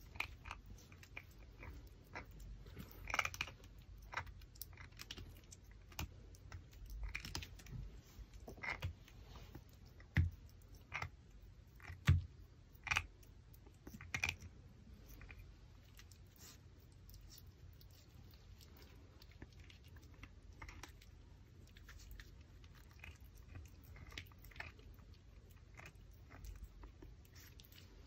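A Pomeranian chewing and gnawing a raw pork backbone: irregular crunches and clicks of teeth on bone. These are loudest and most frequent in the first half and grow fainter and sparser later.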